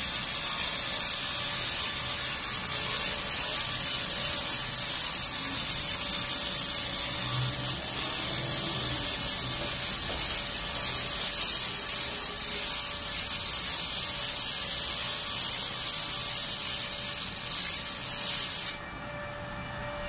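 Pulsed rust-removal laser ablating rust from a steel plate, giving a steady, loud, high-pitched hissing buzz. It cuts off suddenly about 19 seconds in as the laser stops firing.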